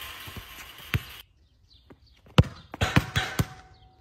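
A football being struck and bouncing on a concrete court: a string of sharp thuds between about one and three and a half seconds in. A steady hiss cuts off about a second in.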